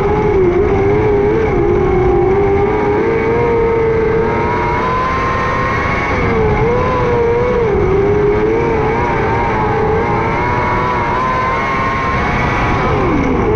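A 600cc micro sprint car's motorcycle engine running hard at racing speed, its pitch rising and falling as the throttle is worked through the corners, with a brief drop in pitch near the end as the throttle is lifted.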